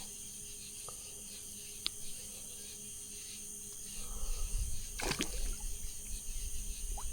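Water splashing and sloshing with knocks, picking up about four seconds in and sharpest about five seconds in, over a faint steady insect drone.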